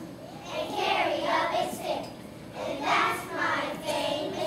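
A large group of young children singing together as a choir.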